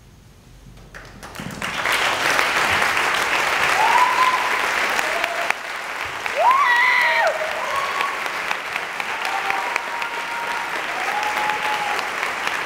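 Theatre audience applauding at the curtain call. The clapping begins about a second and a half in, swells quickly and holds steady, with scattered cheering voices over it.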